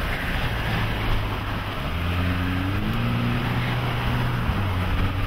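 Car engine running under way. Its note steps up in pitch about two and three seconds in and settles back near the end, under a steady rush of wind on the microphone.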